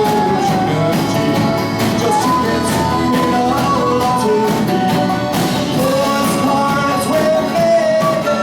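Band music: an instrumental passage, a sustained melody over full accompaniment, with no words sung.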